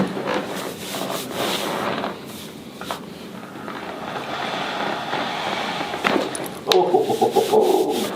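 Hands rubbing and kneading the muscles of a patient's back through clothing, loosening the soft tissue before a low-back chiropractic adjustment. The scrubbing gets louder and coarser about two-thirds of the way in.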